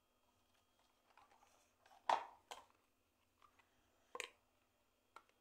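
Handling noise: a few sharp knocks and clicks, the loudest about two seconds in, a smaller one just after it, and another about four seconds in.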